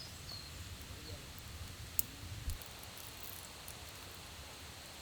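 Campfire crackling: a few sharp pops from the burning wood, the loudest about two seconds in, over a steady hiss.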